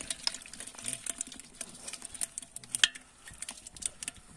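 Live catfish and eel-like fish writhing in a container, making irregular wet slaps and clicks as their slippery bodies move against one another and the container wall.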